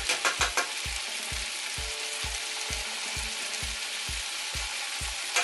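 Cubed potatoes frying in coconut oil in a pan, a steady sizzle. A spice jar of ground coriander rattles as it is shaken over them in the first half second. A soft low thump repeats about three times a second underneath.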